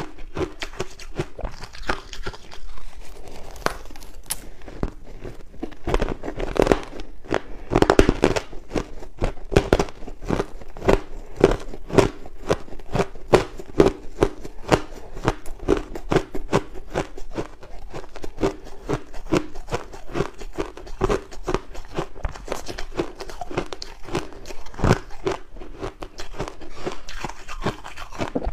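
Crushed ice being bitten and chewed in big mouthfuls close to the microphone: continuous, rapid crunching and crackling.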